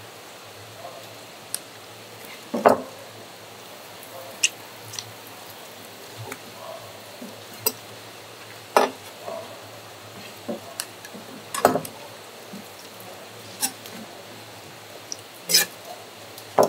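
Irregular knocks and clinks, about ten of them a second or more apart, from utensils and containers being handled as squid and cuttlefish are cleaned, over a steady low hum.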